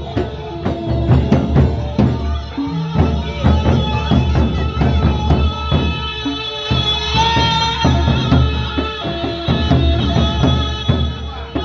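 Sasak gendang beleq ensemble playing: big double-headed barrel drums beaten in a fast, busy rhythm, with hand cymbals clashing over held pitched notes.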